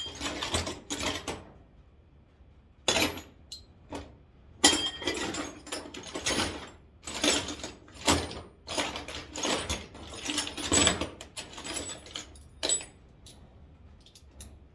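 Socket ratchet clicking in several quick runs as 8 mm bolts holding a headlight assembly are loosened, with pauses between runs.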